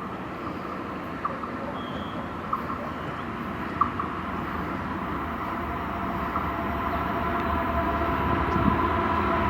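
Freight train approaching on the rails, its rumble growing steadily louder, with a few sharp clicks in the first four seconds.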